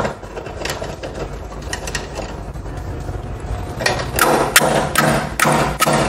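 Slide-hammer bearing puller driving out the upper steering head bearing race of a Bajaj Pulsar NS 200 frame. There is a sharp metal clack at the start and some rattling as the weight is handled. From about four seconds in, the sliding weight slams against its stop in a steady run of about five ringing metallic knocks, two to three a second.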